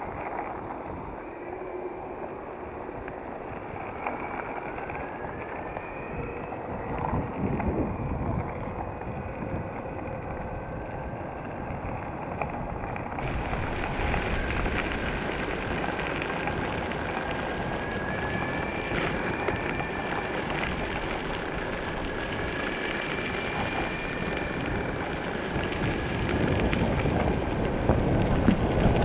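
Electric longboard riding over a gravel track: the rough, steady rolling noise of all-terrain wheels on gravel with wind on the microphone, growing louder near the end. A faint wavering whine from the board's electric drive sits above the rolling noise.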